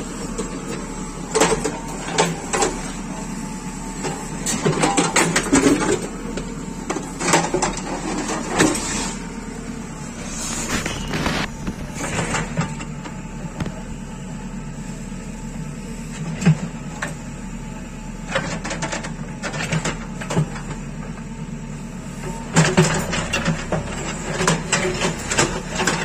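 JCB 3CX backhoe loader's diesel engine running steadily while the steel bucket digs into soil and stony rubble, with irregular clanks and scrapes of the bucket against rock in several bursts.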